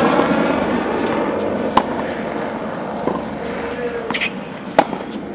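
Tennis ball struck by a racket twice, once about two seconds in and again, louder, near the end, as sharp single hits over a steady outdoor wash with some voices.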